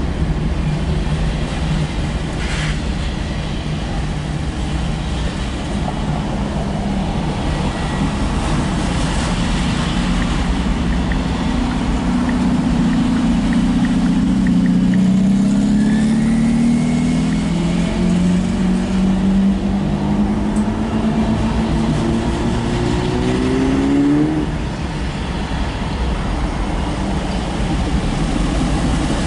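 Loaded autorack freight train rolling past with a steady rumble. About twelve seconds in, an engine note comes in and climbs steadily in pitch for about twelve seconds, then cuts off suddenly.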